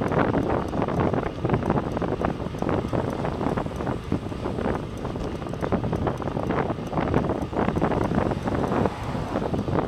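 Wind buffeting the microphone of a camera moving along the road, a steady, fluttering rush with road noise underneath.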